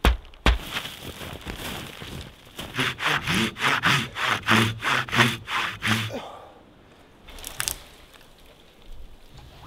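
Large hand saw cutting through a thick, dense dead hardwood trunk in quick back-and-forth strokes, about three a second, stopping about six seconds in. One sharp crack follows as the tree comes down.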